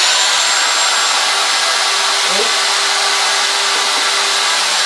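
DeWalt DW618 router running steadily at full speed with a high whine, a 90-degree V-groove bit routing a heavy line around a carved outline in a wooden sign.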